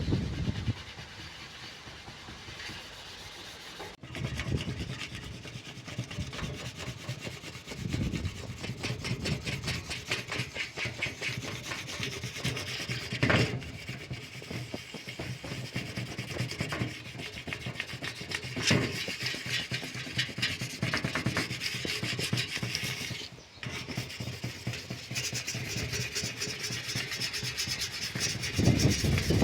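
Sandpaper rubbing on an old PC case in rapid back-and-forth strokes, with brief breaks and an occasional knock from handling the case.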